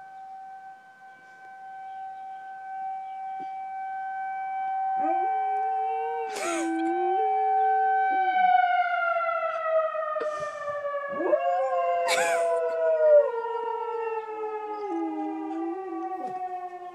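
Tornado siren sounding one steady tone, then winding down in pitch from about eight seconds in, while a dog howls along in several long wavering howls. Two brief sharp sounds stand out, about a third and two-thirds of the way in.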